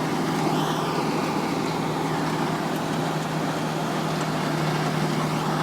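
Rotochopper CP-118 horizontal wood grinder running steadily, a constant engine hum under a dense mechanical noise.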